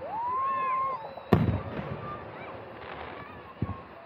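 Aerial firework shells bursting: one sharp, loud bang about a second in, with a trailing rumble, and a smaller bang near the end. Just before the first bang, a high tone rises and holds for about a second.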